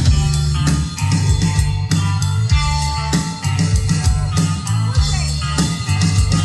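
Rock band of electric guitar, bass guitar and drum kit playing an instrumental stretch with no singing, drums hitting steadily over a held bass line.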